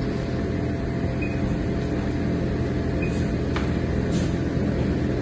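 Steady mechanical hum and rumble, like a motor or fan running, starting and stopping abruptly with the shot.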